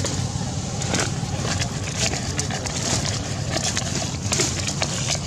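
Outdoor ambience: a steady low rumble with many scattered short crackles and clicks.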